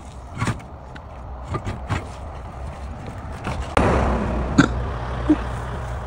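Light knocks and metal clicks as a truck's front wheel is worked off its hub for a tyre change. About four seconds in comes a sudden louder scraping rush ending in a sharp knock as the wheel comes free, over a steady low road rumble.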